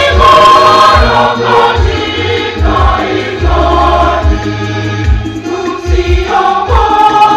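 A choir singing a church hymn, with a deep drum beating along under the voices.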